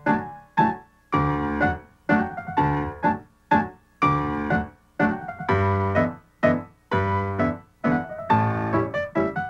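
Solo piano music: chords struck about twice a second in a steady rhythm, each dying away before the next.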